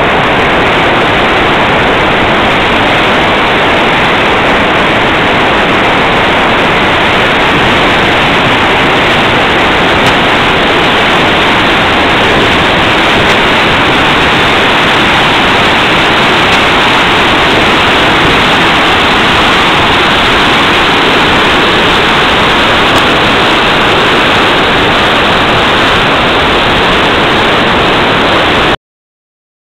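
Storforsen's large rapids: a great volume of whitewater pouring down the falls, giving a loud, steady, unbroken rush of water that cuts off suddenly near the end.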